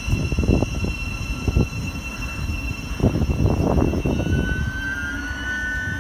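Thameslink Class 700 electric multiple unit running slowly past on the far line: a low, uneven rumble with a thin steady whine over it. A high squeal comes in about four seconds in, as the train draws nearly to a stand.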